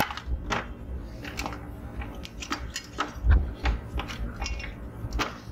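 Handling noise: irregular light clicks and rattles of a printer motherboard and the printer's plastic casing and wiring being moved about on a bench, with a low thump about three seconds in.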